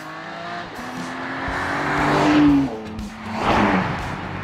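BMW X4 M Competition's inline-six accelerating toward and past, its engine note rising and growing louder until about two and a half seconds in, then dropping in pitch as the car goes by, with a rush of tyre and wind noise just after.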